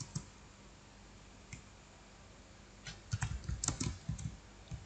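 Computer keyboard being typed on: one faint keystroke about a second and a half in, then a quick run of several keystrokes starting about three seconds in.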